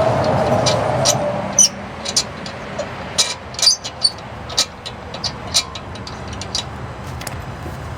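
A passing vehicle fades away, then a string of irregular sharp clicks and taps follows over a low background.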